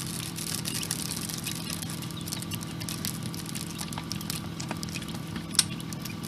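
Quail chicks scurrying about the brooder floor, their feet making quick, irregular pattering clicks, with one sharper click late on. A steady low hum from the incubator's fans runs underneath.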